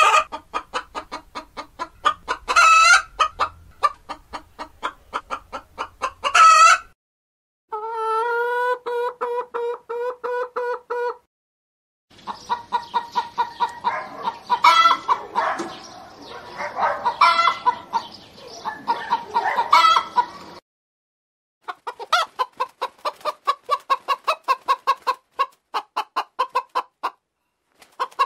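Domestic hens clucking in a run of separate recordings with short silent breaks. First comes rapid clucking with two loud squawks, then a steady series of even, pitched clucks. After that several hens cluck together, with louder calls among them, and finally rapid clucking again.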